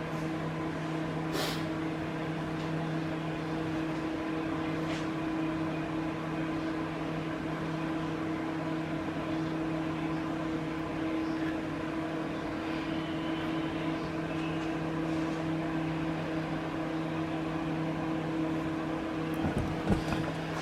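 Steady mechanical hum that holds one unchanging pitch, with a light click about a second and a half in and a few knocks near the end.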